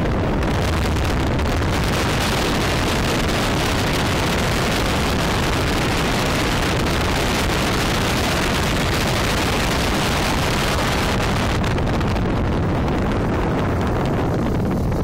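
Wind rushing over the microphone aboard a hydrofoil under way, over the low drone of its engine and hull. The high hiss eases a little near the end.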